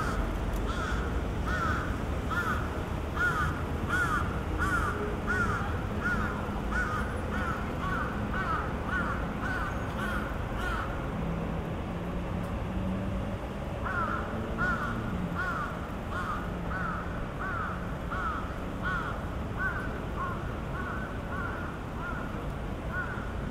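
Bird-like electronic chirps of a Japanese audible pedestrian crossing signal, evenly spaced at about two a second, pausing for a few seconds around the middle and then resuming, over steady street traffic.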